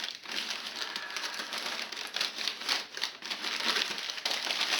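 Crumpled newspaper packing crinkling and rustling as it is pulled out of the radio, a continuous run of irregular crackles.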